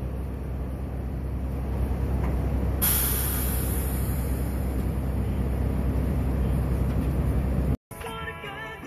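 Steady low rumbling noise with no voices, joined about three seconds in by a high hiss; it cuts off abruptly near the end.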